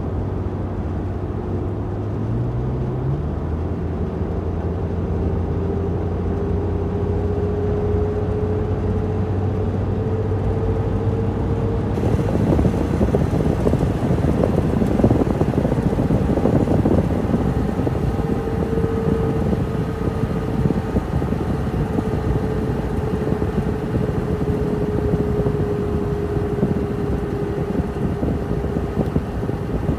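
Cab noise of a 2014 Ford F-150 with the 3.5 L EcoBoost V6 cruising at highway speed: engine and road noise with a steady hum that drifts slowly in pitch. The noise grows fuller and hissier about twelve seconds in.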